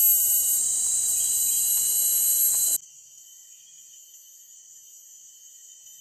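Steady, high-pitched chorus of forest insects, loud at first. About three seconds in it drops abruptly to a much fainter chorus of the same kind.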